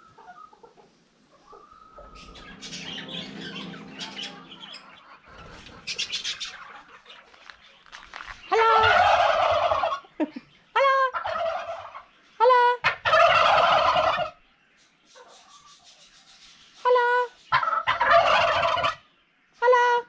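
A group of domestic turkey toms gobbling: several loud bouts of rapid, warbling gobbles in the second half, some overlapping. Softer, scattered bird calls come before them.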